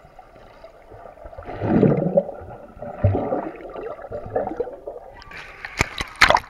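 A child swimming underwater, heard through a submerged camera: muffled rumbling and gurgling of water and bubbles, with a thump about three seconds in. A few sharp splashes come near the end as the camera breaks the surface.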